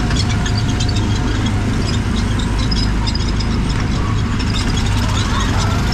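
Small gasoline engine of a Disneyland Autopia ride car running steadily while being driven, with a constant low hum and a busy rattle of small ticks over it.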